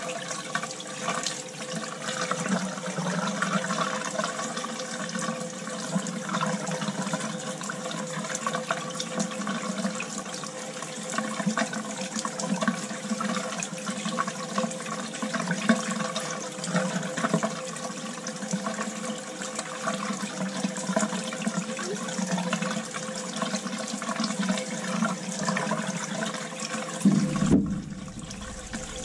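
Water rushing from a purge hose into a bucket of water, splashing and sputtering unevenly as air is bled out of a hydronic boiler system; the spurting and bubbling show there is still a lot of air in the system. A steady hum sounds underneath.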